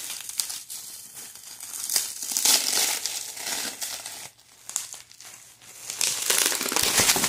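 Packaging crinkling and rustling as a part is handled and unwrapped, in two louder stretches of a second or two each.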